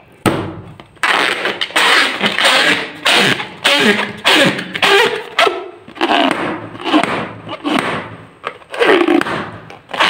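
Hands squeezing and rubbing a long latex balloon: a quick series of rubber rustling and squeaking strokes, one after another, after a brief handling click at the start.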